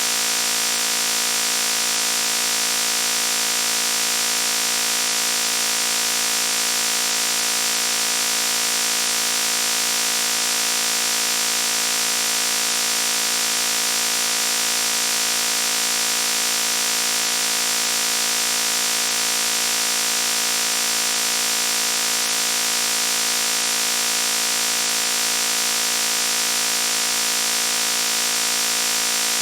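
Loud, harsh buzzing noise, held steady and unchanging, with a dense, hissy edge that is strongest in the high treble.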